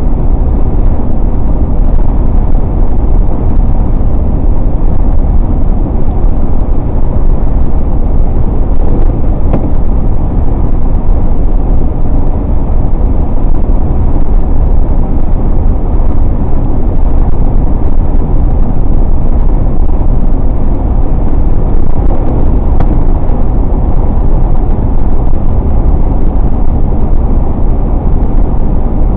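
A car driving at a steady speed: continuous road and engine noise, strongest in the low end.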